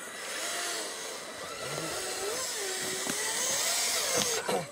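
Motor and drivetrain of a radio-controlled scale crawler truck whining as it climbs a sand slope, the pitch rising and falling with the throttle. A steady hiss runs behind it.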